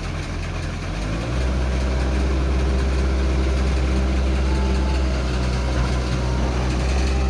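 Heavy machinery engine running steadily, stepping up to a louder, deeper-loaded sound about a second in and then holding steady.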